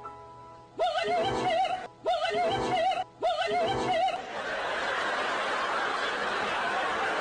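Edited comedy soundtrack: a few held chime-like music notes, then a wobbly, high-pitched giggling sound effect three times in a row. From about four seconds in, a steady rushing noise takes over.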